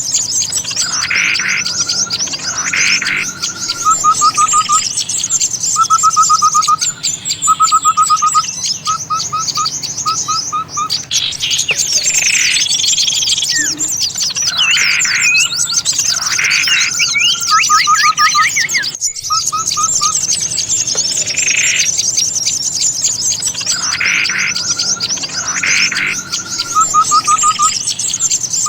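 A dense chorus of small songbirds as used in a bird-luring call recording: constant high, thin twittering, broken every second or two by short fast trills of four or five notes and by louder single calls and chatters.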